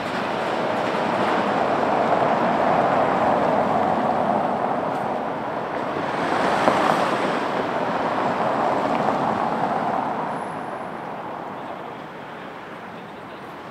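Street traffic passing close by: a steady rush of vehicle noise that swells and ebbs, then falls away about ten seconds in.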